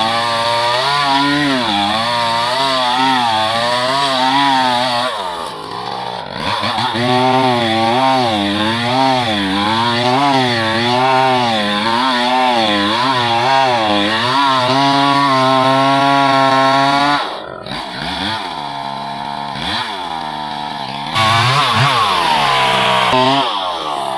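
Small gasoline chainsaw running at high revs while cutting through wood, its engine pitch wavering up and down under load. Twice, about a quarter of the way in and again about two-thirds through, it drops back in speed and level, then revs up again.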